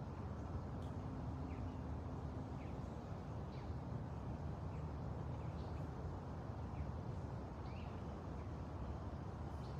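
Small birds chirping in short, repeated calls over a steady low background rumble.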